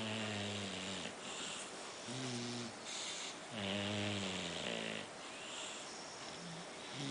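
Sleeping English bulldog puppies snoring, the noisy breathing typical of the breed's short muzzle: low pitched snores about every two seconds, with hissing breaths between them.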